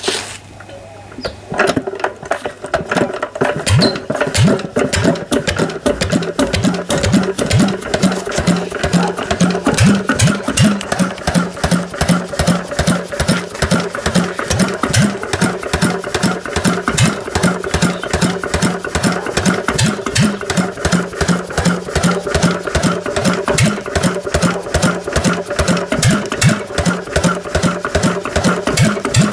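A McDonald crude-oil semi-diesel single-cylinder stationary engine starts firing about a second and a half in, then settles into a steady, rapid beat of exhaust strokes.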